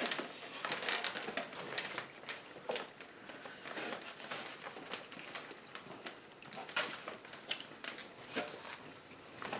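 Eating sounds: irregular small clicks and crackles of chewing and of handling food and its paper packaging.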